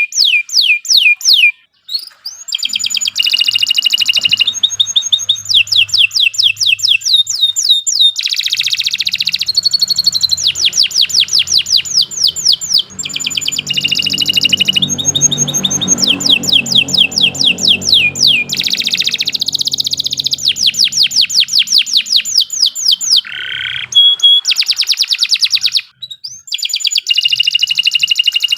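Domestic canary singing a long, unbroken song of fast rolling trills, each phrase a rapid run of identical high notes. It changes phrase every second or two and pauses only briefly twice.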